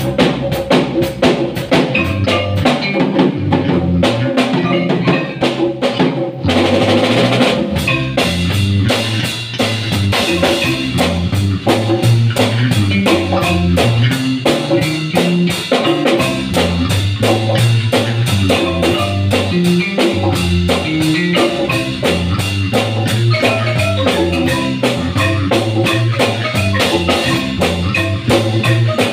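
Live marimba band playing: a marimba melody over a steady beat on drum kit and congas, with a cymbal crash about six seconds in.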